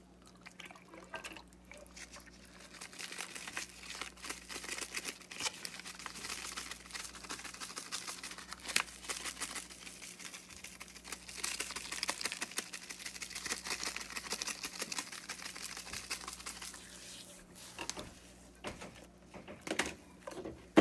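Hands rubbing and patting butter spread and seasoning into the skin of a raw whole chicken, a dense run of small wet squishes and smacks. It thins out near the end, with a few louder pats.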